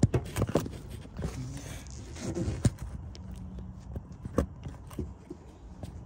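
Handling noise from the recording phone being moved and set down: irregular knocks, taps and scrapes, the loudest at the very start and about four seconds in, with a low steady hum coming in about halfway through.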